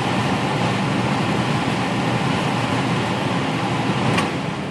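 HVAC blower fan running steadily on its new run capacitor, a smooth even whoosh of moving air and motor, with a brief click about four seconds in and the sound fading near the end.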